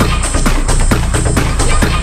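Fast techno from a DJ set, driven by a steady, pounding kick drum.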